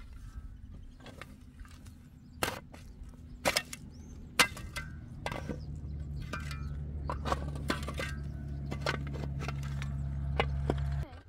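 A series of sharp knocks and clinks, the loudest three in the first half, over a low steady hum that starts about five seconds in and stops abruptly near the end.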